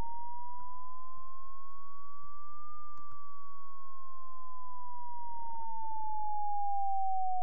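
Computer-generated pure sine tone from a Max/MSP cycle~ oscillator, sliding slowly up in pitch for almost three seconds and then gliding back down.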